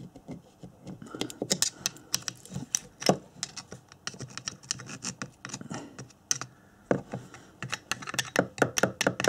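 A screwdriver blade scraping and picking at the laminated core of a Honda CB250N ignition stator: a quick, irregular run of scratches and clicks, thicker from about a second in. The old insulation is being cleaned off the bare core so it can be re-epoxied.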